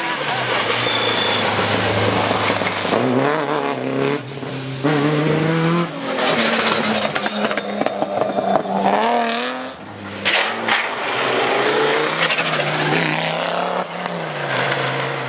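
Historic rally cars passing one after another at full throttle, including a Ford Escort Mk1, a BMW E30 and an Audi quattro. Each engine revs up and drops back on the gear changes. The engine note changes abruptly a few times as one car gives way to the next.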